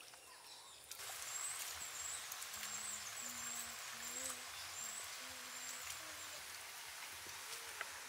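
Grated papaya cooking in a clay pot over a wood fire, a steady sizzle that starts about a second in. A bird gives a series of short low hooting notes through the middle, with faint high chirps above.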